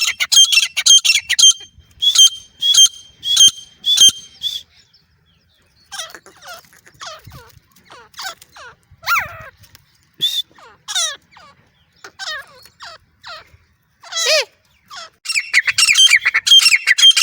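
Grey francolin (desi teetar) calling: a fast run of shrill repeated notes, then a looser series of downward-sliding notes, and a dense fast run again near the end.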